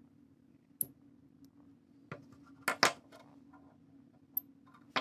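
Steel needle-nose pliers handled and laid on a wooden tabletop: a few sharp, light clicks and knocks, the loudest pair a little before the middle, over a faint steady low hum.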